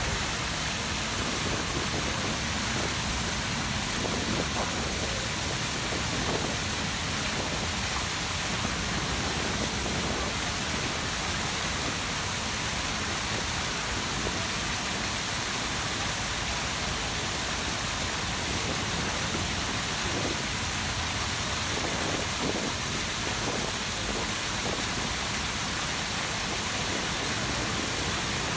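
Grand Cascade fountains, with the Samson fountain's tall jet and the many surrounding jets falling into the basin, making a steady, unbroken rushing splash of water.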